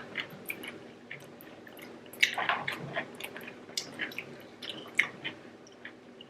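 Close-up mouth sounds of eating: wet chewing and lip-smacking in irregular short clicks, busiest about two seconds in and again near five seconds.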